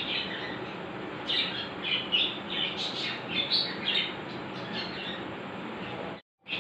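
Birds chirping in short, high bursts over a steady background hiss.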